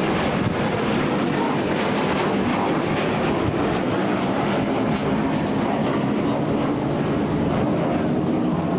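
Jet engine noise from a pair of F-14 Tomcat fighters flying past overhead: a steady, even rush without any breaks.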